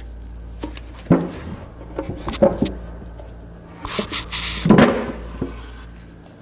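Several knocks and clatters of wooden parts being handled on a workbench, with a brief hiss about four seconds in, over a steady low hum.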